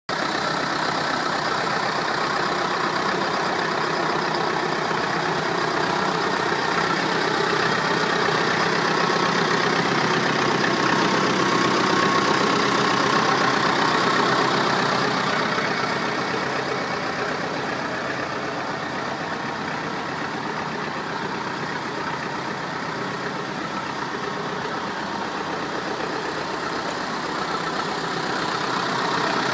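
Someca M-45 tractor engine idling steadily, a little quieter for a stretch past the middle and louder again near the end.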